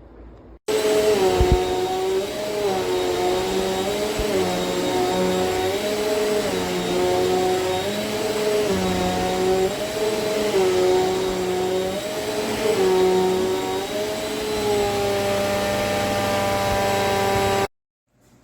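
Eureka NEU10AE4 AirSpeed bagless upright vacuum cleaner running, its motor whine dipping in pitch and recovering about every second and a half. It starts abruptly about a second in and cuts off suddenly near the end.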